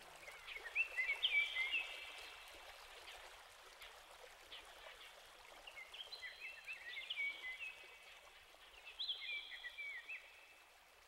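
Bird chirping in three short bouts of quick, high twittering notes, about a second in, around six seconds in and near nine seconds, over a steady hiss.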